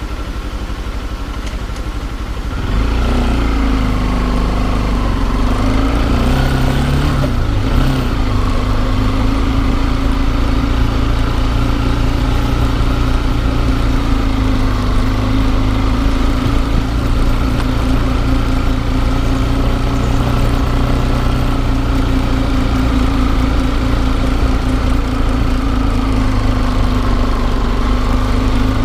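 Motorcycle engine heard from a camera mounted on the bike: running quietly at first, then growing louder as it pulls away about three seconds in, its note wavering around seven seconds before settling into a steady cruise.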